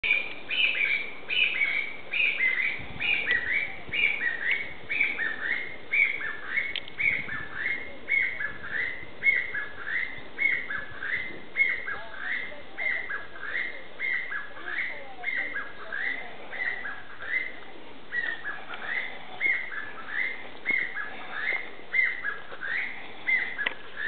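Chinese bamboo partridge calling at close range: a long, unbroken run of loud, shrill, repeated notes, about two a second.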